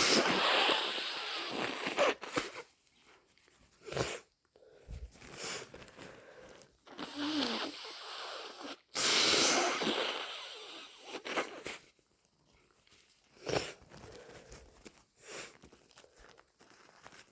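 Nose blowing and sneezing into a tissue, from someone badly congested with a head cold. There are two long blows, one at the start and one about nine seconds in, with several short sharp bursts in between and after.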